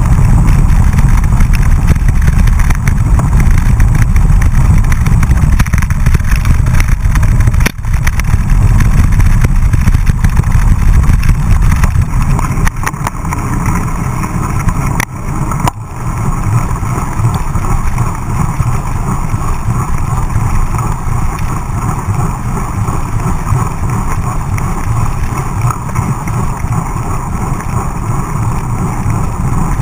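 Wind buffeting the microphone of a camera mounted on a mountain bike riding fast, with tyre noise on a wet paved road. There are a few sharp knocks from bumps, one about eight seconds in and a couple around halfway; after that the low rumble eases as the road turns to smoother asphalt.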